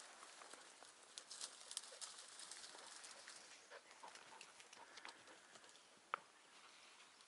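Near silence: faint rustling of dry brush and scattered small twig snaps and clicks from someone moving slowly through scrub, with one sharper click about six seconds in.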